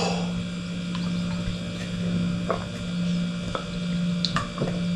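Steady low electrical hum, with a few faint short clicks in the second half.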